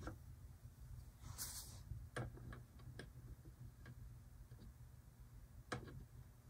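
Faint, scattered small clicks of fingers handling the pantograph and thin wires of an HO-scale ICE2 model locomotive, with one slightly louder click near the end and a brief soft hiss about one and a half seconds in, over a low steady hum.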